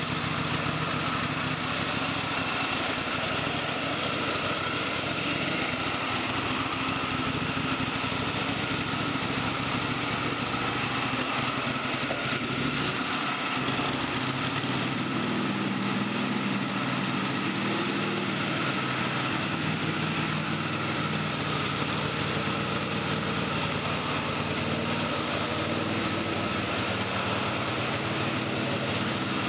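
WerkMaster Titan XT propane-powered concrete floor grinder running with a steady engine hum as it grinds old concrete, stripping carpet glue and thinset with its PCD tooling.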